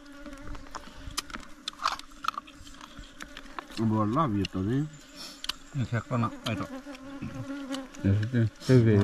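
A steady insect buzz, with short snatches of a man's voice about four, six and eight seconds in.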